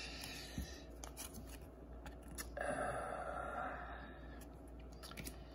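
Quiet handling of Pokémon trading cards: the stack is slid out of a torn foil booster pack, with a soft rustle about two and a half seconds in and faint ticks of card and wrapper.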